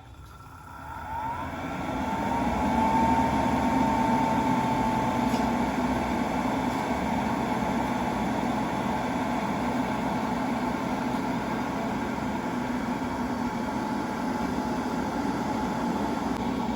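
Laboratory centrifuge starting up: a whine climbs in pitch over the first couple of seconds, then runs steadily as it spins blood samples to separate the serum.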